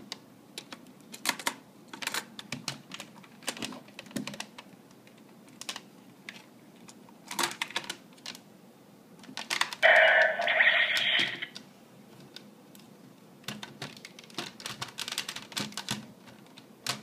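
Plastic clicks and clacks as the Kyoryuger GabuRevolver toy is handled and Jyudenchi batteries are loaded into it. About ten seconds in, the toy gives one loud electronic sound effect from its small speaker, lasting just over a second.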